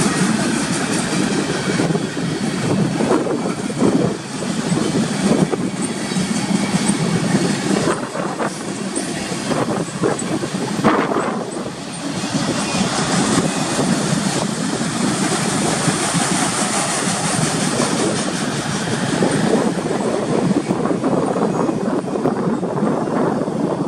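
Freight cars of a manifest train rolling past: steel wheels running on the rails with a continuous rumble and repeated clatter.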